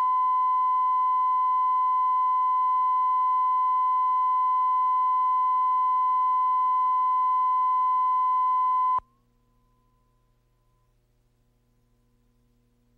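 Steady, high-pitched reference test tone played with colour bars at the head of a broadcast videotape, cutting off suddenly about nine seconds in. Near silence with a faint hum follows.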